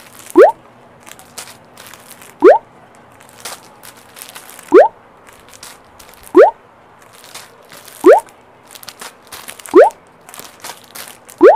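A short, quickly rising 'bloop' tone sounds seven times, about every two seconds. Between the tones there is faint crinkling of the plastic wrapping on packs of handkerchiefs being handled.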